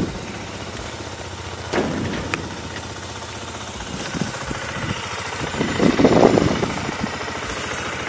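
KTM Duke 125's single-cylinder engine running, with a louder swell about six seconds in.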